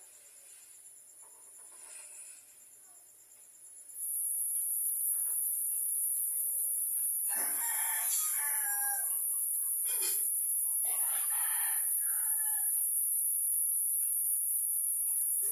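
A rooster crowing once about halfway through, followed by a few shorter calls. Throughout the second part, a steady high-pitched buzz, louder than the calls, starts suddenly about four seconds in.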